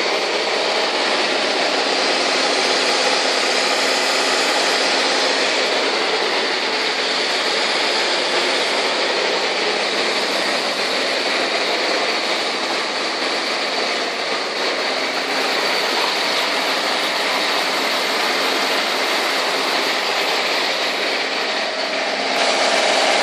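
SPP QHH80 high-head pump set running steadily at 2000 rpm, an even mechanical drone. It grows a little louder, with a steadier hum, near the end.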